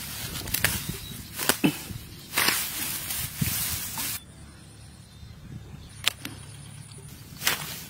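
Leafy plants rustling and swishing as greens are picked by hand, with a few sharp snaps and clicks. It drops quieter about four seconds in.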